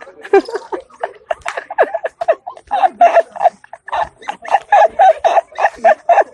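People laughing hard: a fast run of short 'ha' pulses, about four to five a second, mixed with some voices.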